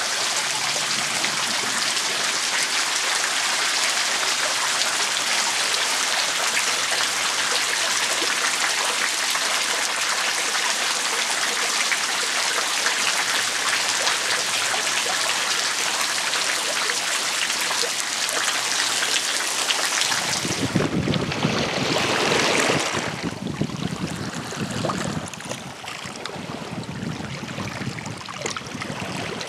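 Groundwater dripping steadily from a high bank onto the pebbles, a dense rain-like patter. About two-thirds of the way through it gives way to a rougher sound that swells and fades with a deep rumble, wind on the microphone with sea surf.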